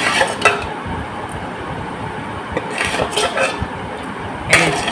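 A steady background rush of noise, broken by a few short clinks and knocks: one at the start, a cluster around the middle and another near the end.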